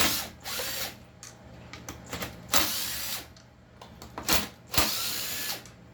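Power drill-driver whirring in three short runs, backing out the screws that hold the handle on a 620 chainsaw, with a few clicks of parts being handled between the runs.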